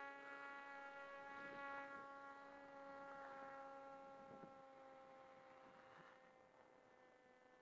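Faint, steady drone of a radio-controlled plane's motor and propeller, flying on its own in GPS loiter mode. It drifts slightly lower in pitch and fades out about four and a half seconds in, leaving near silence.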